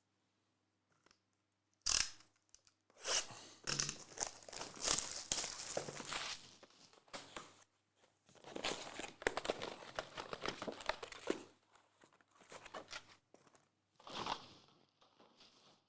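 Trading card packaging being torn open and crinkled by hand: a sharp snap about 2 seconds in, then two long stretches of tearing and crinkling, and a short burst near the end.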